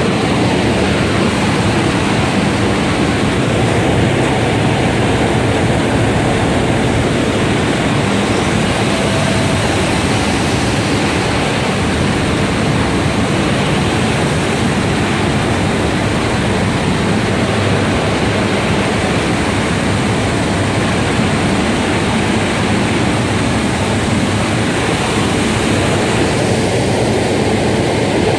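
A belt press machine running: a loud, steady, even rushing noise with a low hum and no distinct rhythm or tone.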